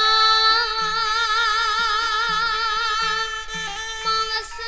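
Campursari band music: one long held note with vibrato rings over short, soft bass notes about twice a second.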